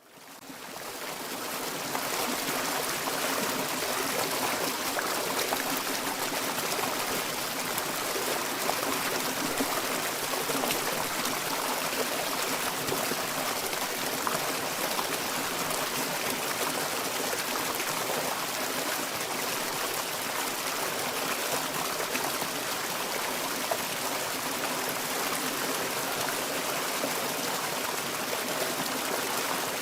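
Turbulent water flowing and churning, recorded up close: a steady rushing and splashing that fades in over the first second or two and then holds level.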